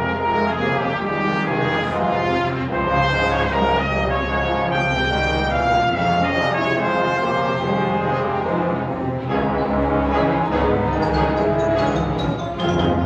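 Youth symphony orchestra playing a classical piece at full strength, brass and bowed strings together over held low bass notes.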